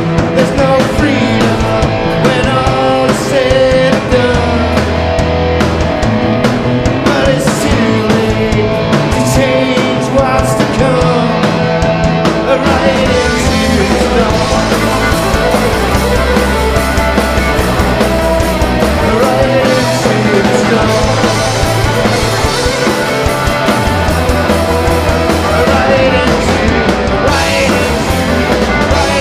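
Live rock band playing loudly and without a break: fiddle carrying a wavering melody over electric and acoustic guitars, drum kit and held low bass notes.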